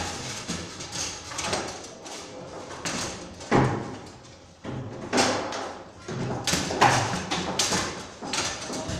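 Bonzini foosball table in play: the ball knocked sharply by the figures and rebounding off the table, with the rods clacking, several hard strikes at uneven intervals.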